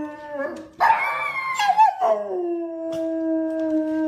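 Dog howling in long drawn-out cries: one steady howl dies away about half a second in, a shorter, higher, wavering howl follows about a second in, and a long steady howl starts at about two seconds and holds through.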